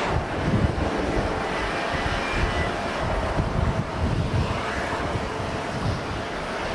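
Jet airliner engines running steadily, with gusty wind buffeting the microphone in low, irregular thumps.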